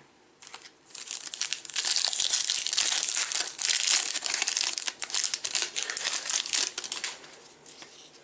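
Foil wrapper of a trading-card pack crinkling and tearing as it is opened, from about a second in until about seven seconds.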